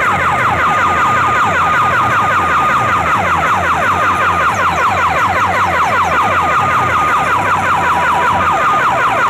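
DJ sound system playing a loud siren-like electronic effect: a held high tone with rapid falling sweeps, about five a second, over a pulsing bass beat. The held tone steps slightly lower a little past the middle.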